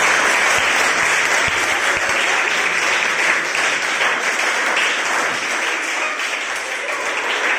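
A group of people applauding steadily, many hands clapping at once.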